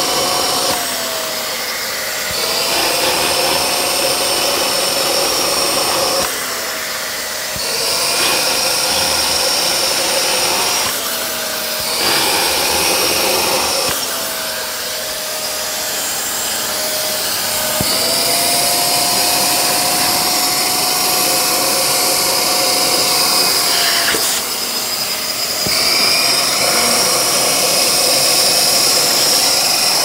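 Small wet vacuum sucking water out of a soaked carpet. Its motor whine stays steady but dips in pitch and level about five times.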